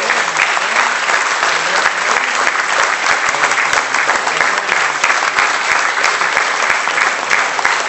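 Audience applauding: dense, steady clapping from a concert hall crowd.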